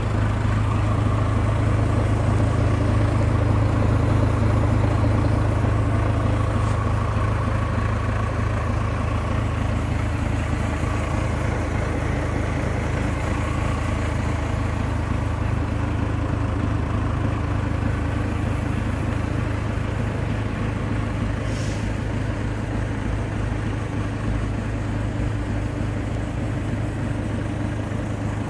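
A heavy engine idling: a steady, unbroken low drone.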